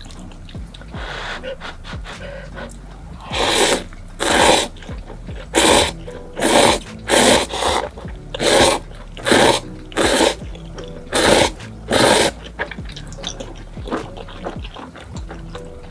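Instant spicy cup noodles being slurped off chopsticks: about a dozen loud, short slurps in a quick run, starting a few seconds in and ending near the end, followed by quieter chewing.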